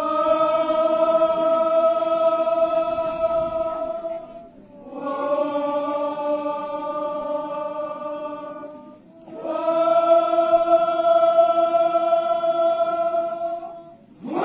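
A chorus of Sumi Naga dancers chanting in unison in a traditional folk chant. They hold three long notes of about four seconds each, and the middle note is slightly lower.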